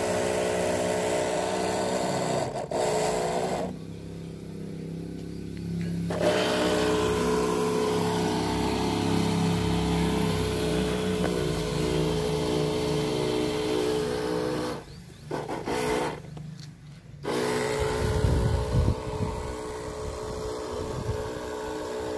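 Motorized pesticide sprayer running with a steady hum of several pitches while insecticide is sprayed from a hose wand, the hiss of the spray on top. About four seconds in the hiss stops for about two seconds while the hum goes on, and around fifteen seconds in nearly all sound drops out briefly.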